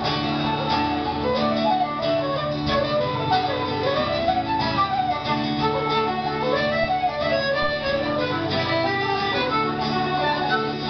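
A Celtic folk band playing an instrumental tune live, with a quick, ornamented melody on flute and accordion over guitar chords.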